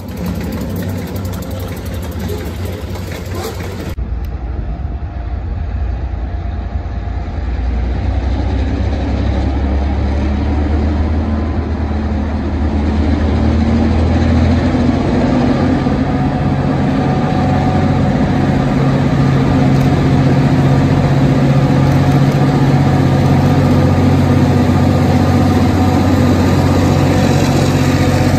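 Diesel locomotives leading a freight train, a steady engine drone that grows louder as they come near and pass close by. The sound changes abruptly about four seconds in.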